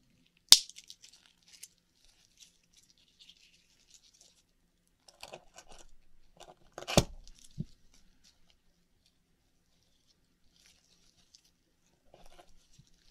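Akoya oyster shells being handled and opened: a sharp click about half a second in, a hard knock with a low thump around seven seconds, and soft scratching sounds between them.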